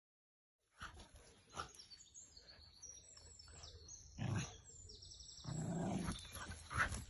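Dogs playing over a ball, with short growls starting about a second in and a longer growl just past the middle.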